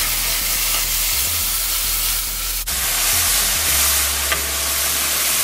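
Grated coconut, sugar and milk sizzling in a hot nonstick wok as a wooden spoon stirs the mixture, a steady hiss with the scrape of the spoon through it.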